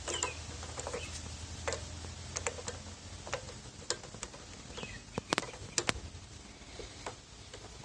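Scattered small clicks and taps of metal parts being handled as a pressure washer's unloader valve is taken apart by hand. The loudest two clicks come about five and a half and six seconds in.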